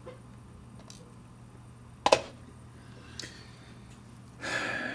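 A single sharp click about two seconds in, over a steady low hum, then a short breathy exhale near the end.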